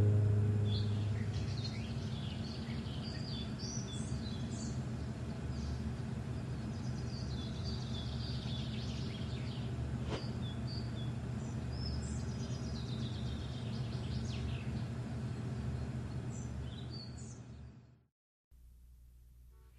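The tail of a song fades away in the first couple of seconds, leaving outdoor ambience: birds chirping in short calls and quick falling sweeps over a steady low hum. There is a single click about halfway, and everything fades to silence near the end.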